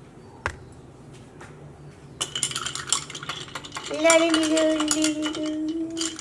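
A long metal spoon stirring ice in a tall glass of iced coffee: rapid clinks and rattles of spoon and ice against the glass, starting about two seconds in. A steady low hum joins about four seconds in.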